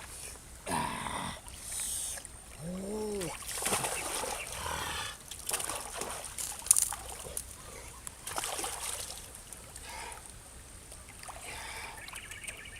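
Water splashing and trickling in repeated short bursts, with a brief call that rises and falls in pitch about three seconds in.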